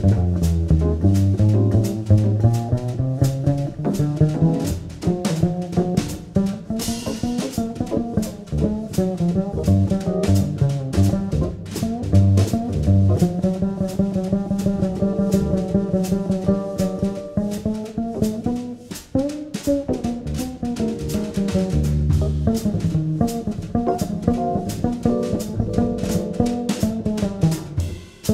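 A jazz trio plays: upright double bass plucked pizzicato, a drum kit keeping time with frequent cymbal and drum strokes, and keyboard chords. A brighter cymbal wash comes about seven seconds in.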